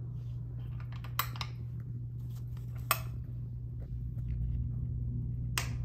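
A few sharp clicks, a second or two apart, from the switches of a multi-head floor lamp being worked by hand, over a steady low hum.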